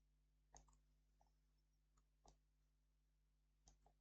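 Faint, scattered clicks of a computer mouse, about seven in all, over near silence with a low steady hum.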